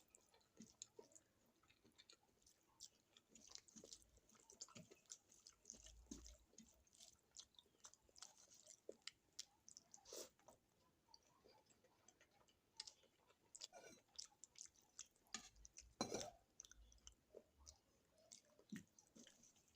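A person chewing and eating close to the microphone: faint wet mouth smacks and small clicks at an irregular pace, with louder smacks about ten and sixteen seconds in.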